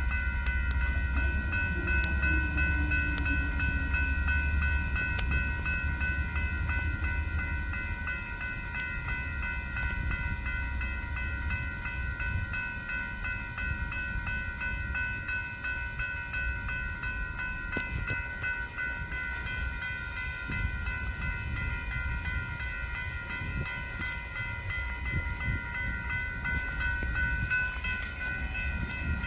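Railroad crossing warning bell ringing continuously while the crossing signals are activated. A low rumble underneath is strongest in the first few seconds.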